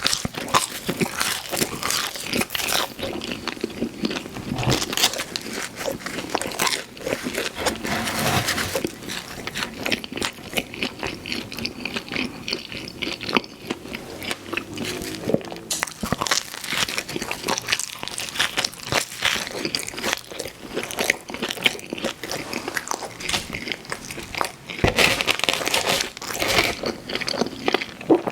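Close-miked eating sounds of pizza: crunchy bites into the crust and wet, cheesy chewing, in an irregular stream of crackles and smacks.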